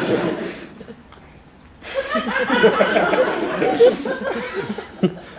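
Audience laughing: a brief murmur of it, a lull, then a bigger burst of laughter from about two seconds in that dies away near the end.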